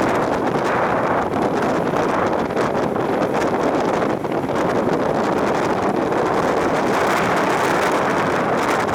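Strong wind blowing across the microphone, a steady loud rumbling rush with no break.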